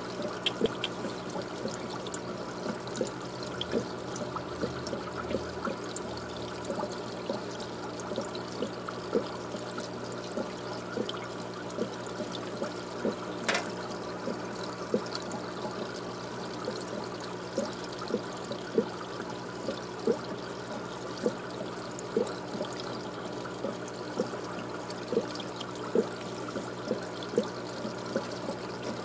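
Water trickling steadily, with frequent small drips or ticks and a low steady hum underneath.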